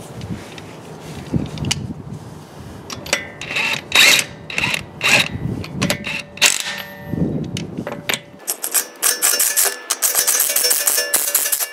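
Cordless impact driver with a 22 mm socket loosening car lug nuts. It gives several short bursts, then from about eight seconds in it hammers continuously with a steady ringing whine.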